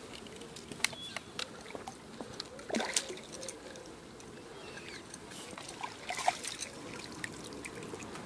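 A hooked fish splashing at the surface of a pond: sharp splashes about a second in and a bigger burst of splashing near three seconds. A landing net then goes into the water, with more splashing around six seconds.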